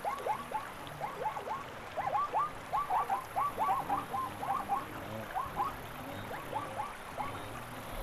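Frogs calling: many short, quick, falling calls in irregular clusters, thickest in the middle, over a faint steady hiss.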